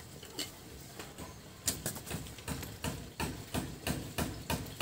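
A run of short, sharp knocks or taps, about two to three a second, beginning about a second and a half in.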